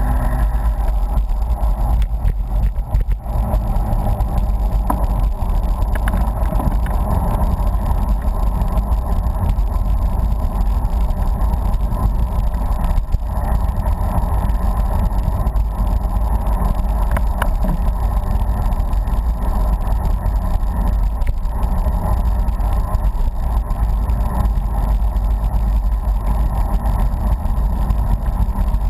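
Steady rumble of wind buffeting the microphone and road noise from a bicycle rolling along at speed, with faint scattered clicks.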